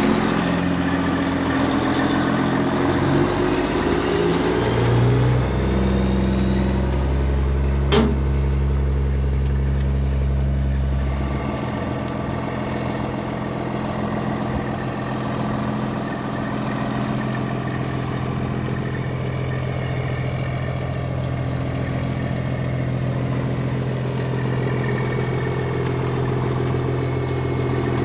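Semi truck's diesel engine running, its engine note shifting in steps during the first few seconds and a deep hum dropping away about eleven seconds in. A single sharp click about eight seconds in.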